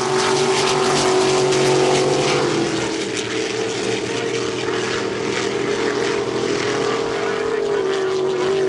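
Racing speedboat engines running flat out in a steady loud drone, the engine note shifting in pitch about two and a half seconds in as the boats pass and change speed.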